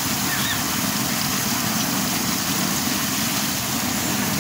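A machine running steadily with a low drone under a constant hiss.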